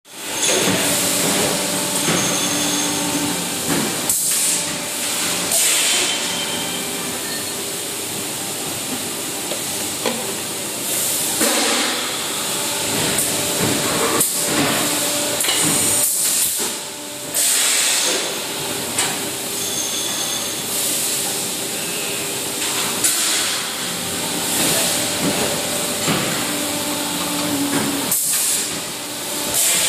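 Servo-driven Sunbun SK 140T plastic injection molding machine cycling while molding 1-litre paint buckets. It makes a steady mechanical hum and hiss, with repeated louder bursts of hissing and a few sharp clunks.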